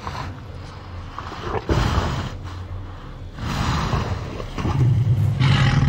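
Film sound effect of a Tyrannosaurus rex's deep, rumbling breathing and low growling, swelling in three surges. The third surge, near the end, is the loudest.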